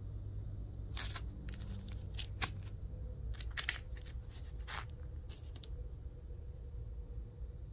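Plastic comic-book sleeves crinkling in a string of short, sharp crackles as bagged comics are handled and swapped, stopping about two seconds before the end, over a steady low hum.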